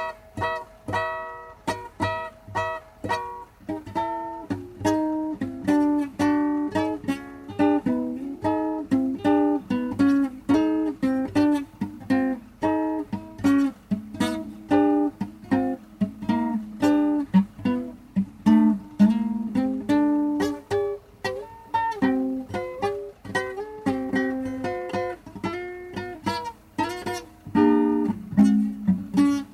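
Solo guitar playing an improvised blues: a steady run of plucked single notes and short chord stabs, each note sharply attacked and quickly dying away.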